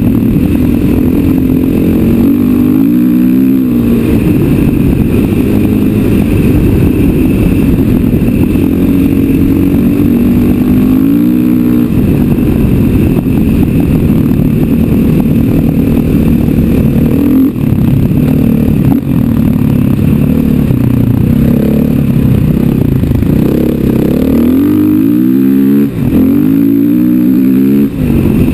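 KTM 500 EXC's single-cylinder four-stroke engine running under load on the move, its pitch rising and falling several times with the throttle, with the most revving in the last few seconds.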